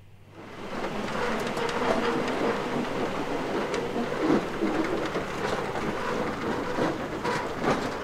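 Metal roller shutter door on a farm shed being pulled down, a continuous clattering rattle with sharp clicks that starts about half a second in.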